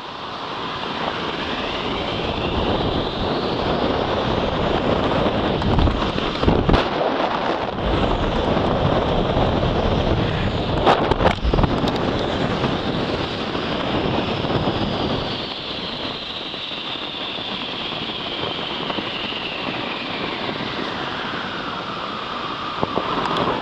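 A snow tube sliding fast down an icy tubing run, with a steady rush of wind on the microphone and snow hissing under the tube. A whine rises as the tube picks up speed, holds, then slowly falls as it slows near the end. A few knocks from bumps come in the middle of the ride.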